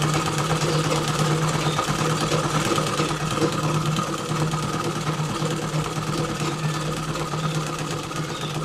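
Domestic sewing machine running steadily, stitching a seam through layered cotton fabric. It makes a steady hum over a fast, even run of needle strokes, and eases off slightly near the end.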